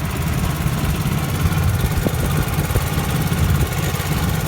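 A small motorboat's engine running steadily, a constant low drone.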